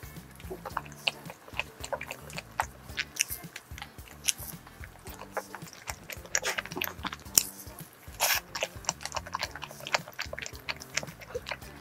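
Biting and chewing a yogurt-cream-filled castella salt bread: soft mouth sounds broken by many short, crisp crackles from its crumbly crust.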